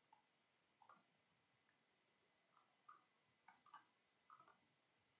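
Near silence broken by about eight faint, irregular clicks, some in quick pairs, from a computer mouse as the presenter calls up a new chart on the trading platform.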